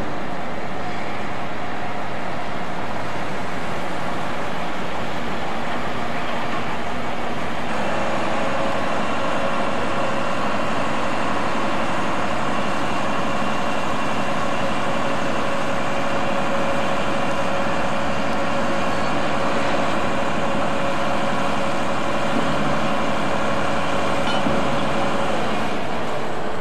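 A heavy crane's engine running steadily. About eight seconds in, a steady, even hum comes in over the engine noise and holds, as the crane works the hook down into the hold.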